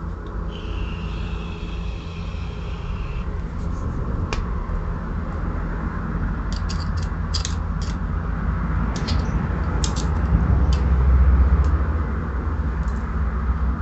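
Dremel rotary tool running steadily as it grinds down the rivet head of a motorcycle drive chain link, so the link pin can be pushed out of the endless chain. Scattered sharp clicks in the middle, with the sound growing louder near the end.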